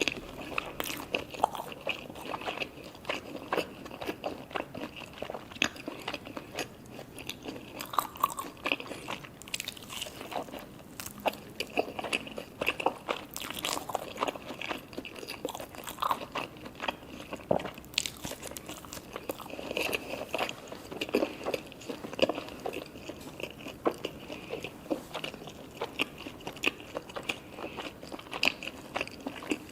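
Close-miked eating of sushi hand-roll cones: repeated crunchy bites and chewing, with many small crisp clicks and crackles throughout.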